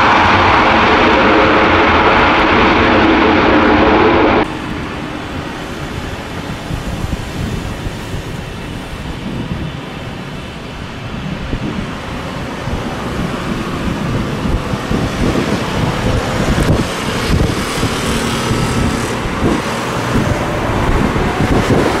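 Boeing 737-800 jet engines running loud on the landing roll, cut off abruptly about four seconds in. Then a more distant airliner's engines with wind buffeting the microphone, slowly growing louder near the end as an Airbus A320 begins its takeoff roll.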